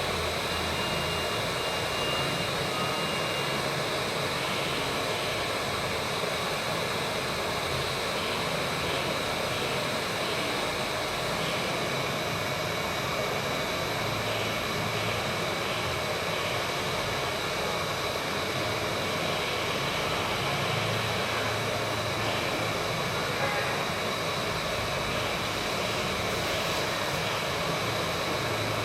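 Hot air rework station blowing steadily onto a phone motherboard, a continuous rush of air with a faint high whine, heating the glued-down chip to soften the underfill.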